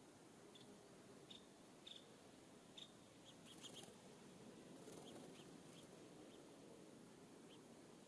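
Faint short, high chirps from small songbirds, scattered irregularly, with a few soft clicks about halfway through, over a steady low background hiss.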